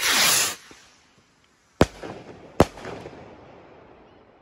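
Small firework cylinder rockets: one hissing launch whoosh that falls in pitch, then two sharp bangs less than a second apart as the rocket heads burst, each trailing off in an echo. The bursts are rather weak.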